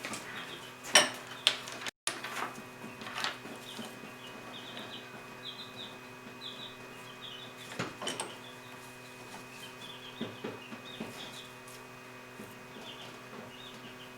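Metal clinking and knocking a few times over a steady hum, as tools and workpieces are handled at a machine. A run of short high chirps sounds in the middle.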